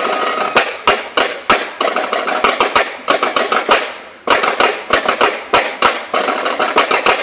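Marching band snare drums playing a fast cadence of sharp, crackling strokes, with a short break about four seconds in.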